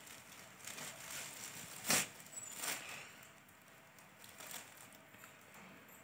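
Crepe suit fabric rustling as it is unfolded and spread out by hand, with one louder swish about two seconds in and softer rustles after.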